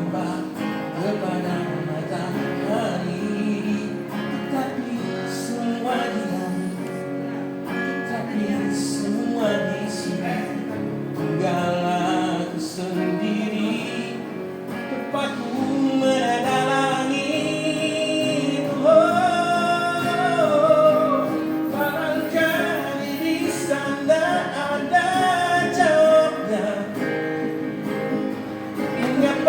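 A male busker singing a slow ballad to a strummed acoustic guitar, the voice holding long notes in the second half.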